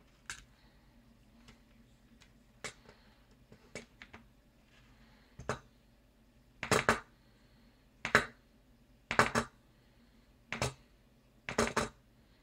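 Handling noise: a few light clicks, then from about six seconds in a run of louder knocks and rattles, several in quick doubles, as the electronics board with its accelerometer module is moved and tilted on a wooden tabletop.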